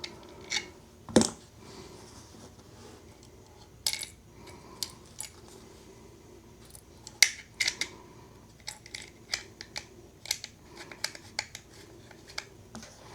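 Irregular small clicks and taps of hands handling a Pentax K1000 film camera and its small parts, with one sharper click about a second in and a quicker run of light ticks in the later half.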